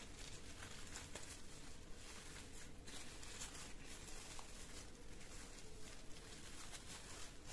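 Faint rustling and crinkling of large pumpkin leaves being folded by hand into a parcel.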